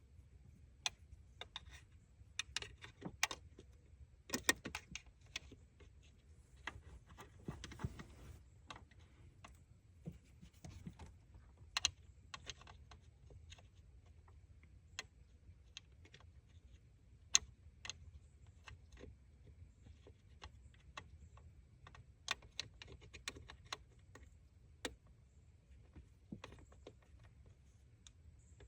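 Irregular light clicks, taps and clinks, some in quick runs of several, from tools and small parts being handled during distributor cap and rotor work, over a faint low hum.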